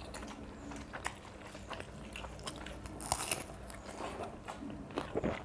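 Eating sounds close to the microphone: water-soaked rice being mixed by hand and chewed, with scattered wet mouth clicks and smacks and one louder slurping smack about three seconds in.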